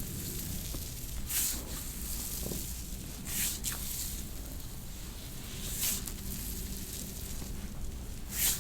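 Soft tissue massage strokes along a calf: four short, soft swishes of skin friction, spaced two to three seconds apart, over a low steady hum.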